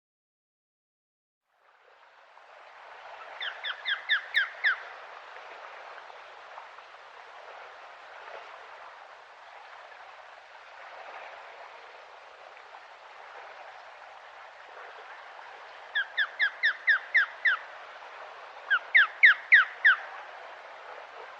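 Osprey calling: three runs of about six short, sharp, rising whistled notes each, over a steady background hiss that starts after a second or two of silence.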